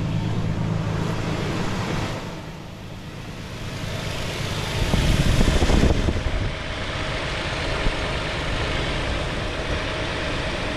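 2010 Toyota Tacoma's V6 engine idling steadily just after its alternator has been replaced, with a brief louder rush of noise about five seconds in.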